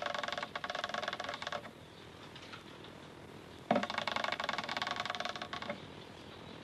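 Aerosol spray can being shaken, its mixing ball rattling rapidly in two bursts of about two seconds each, with a short pause between.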